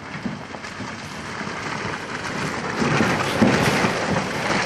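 Small pickup truck crawling downhill over a leaf-littered, muddy trail: a low, uneven engine rumble under a steady crackle and crunch from the tyres. It grows louder a little past halfway as the truck comes closer.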